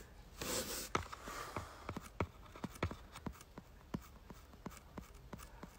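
Light, irregular finger taps on a smartphone held close to the microphone, about three a second, with a soft rustle of handling near the start.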